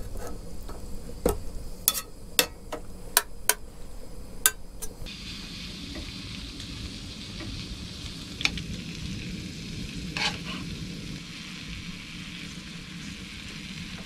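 Food with tagliatelle frying in a pan on a Trangia spirit stove, sizzling steadily. For the first five seconds or so a utensil clicks and knocks against the pan as the food is pushed into place. After that the sizzle runs on with only a couple more clicks.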